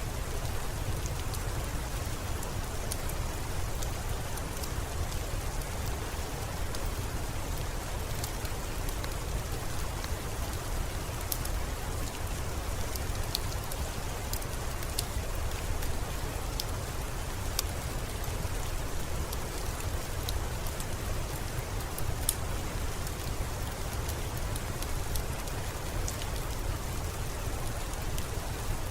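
Steady rain with a low rumble and scattered faint, sharp ticks.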